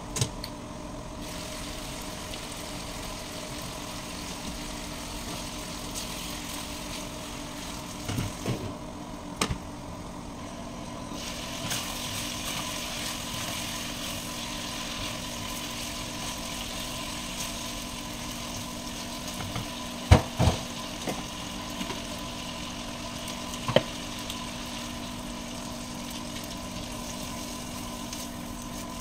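Chicken frying in a wok, sizzling more loudly from about twelve seconds in, over the steady hum of a kitchen range hood fan. A few sharp clinks of spatula and lid on the pan, the loudest about twenty seconds in.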